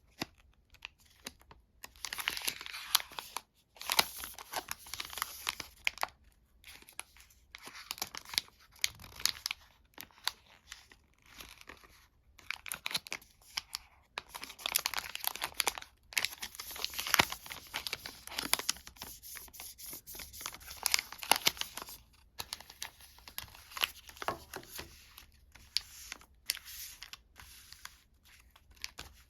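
Sweet and chocolate wrappers being crinkled and torn open by hand, in irregular crackling bursts with short pauses.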